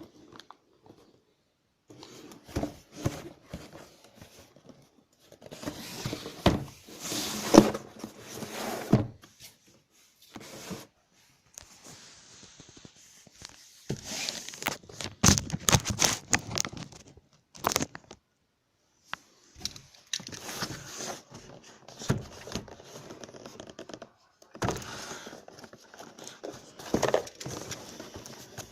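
Crinkling, rustling handling of packaging with scattered knocks and clicks. It comes in bursts of a few seconds with short pauses between.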